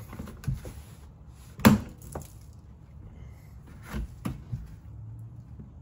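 Plastic underbody splash shield being worked loose by hand: a series of sharp plastic knocks and clicks, the loudest about two seconds in, as the panel shifts against a fastener that still holds it.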